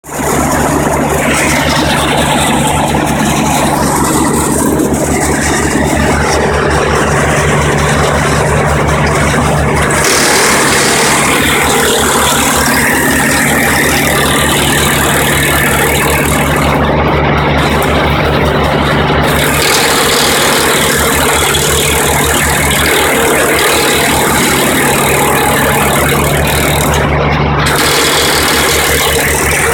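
Engine-driven tree grinder running loud and steady, a low engine hum under a harsh, rattling grinding noise. About ten seconds in, the low hum weakens and the high, hissing part grows.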